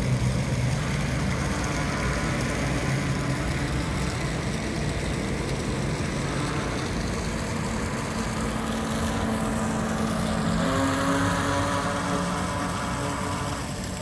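Radio-controlled speedboat's motor running as the boat speeds across the pond, a steady mechanical hum that shifts in pitch and steps up about ten and a half seconds in, over an even hiss.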